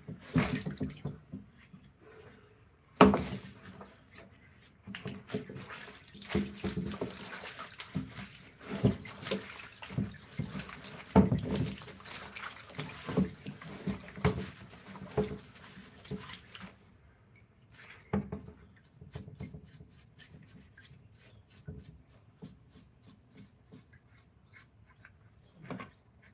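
Irregular knocks, clicks and light scraping from hand work, with one sharp knock about three seconds in; busiest through the middle, then thinning to faint ticks after about sixteen seconds.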